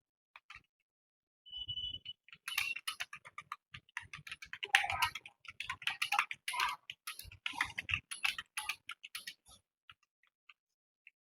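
Computer keyboard typing: a quick, uneven run of keystroke clicks that starts after a short pause and thins out to a few strokes near the end.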